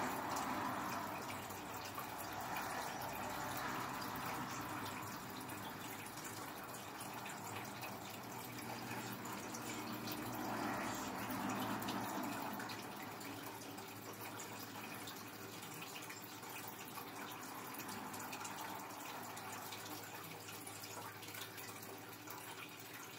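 Faint traffic noise from cars passing on the street outside, heard through a window: a steady hiss that swells and fades several times, strongest near the start and again about ten to twelve seconds in.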